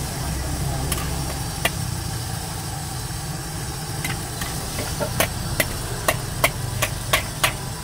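Metal ladle clanking against a steel wok while stir-frying, a sharp clink about every half second in the second half, over a steady low rumble.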